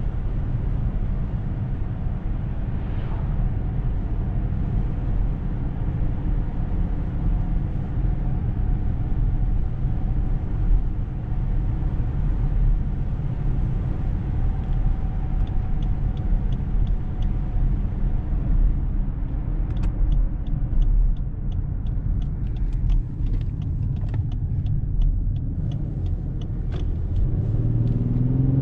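In-cabin sound of the Lexus LS 500's 3.5-litre twin-turbo V6 cruising, under a steady low road and engine rumble. In the second half a run of light, regular ticks comes about twice a second. Near the end the engine note starts to rise as the car accelerates.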